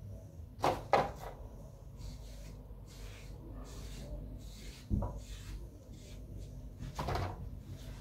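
A few dull knocks and clatters over a low steady background hum: two sharp knocks close together about a second in, another at about five seconds, and a longer rattle around seven seconds.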